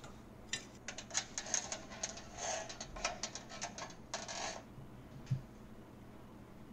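Steel lift cable and metal hardware rattling and clicking as the equalizer cable is handled and fed through the lift's pulleys. It is a run of rapid, irregular metallic clicks for about four seconds, then a single knock.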